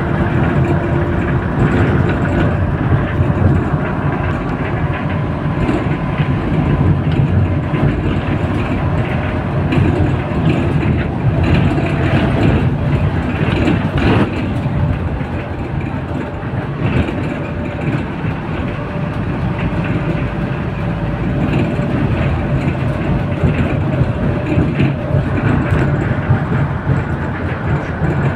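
Inside a moving bus: a steady engine and road drone, with light rattles from the body and fittings and a single knock about halfway through.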